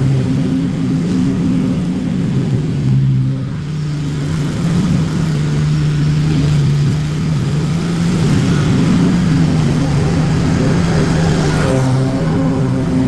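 Lawn mower engine running steadily under load, its pitch dipping briefly about three seconds in and shifting again near the end.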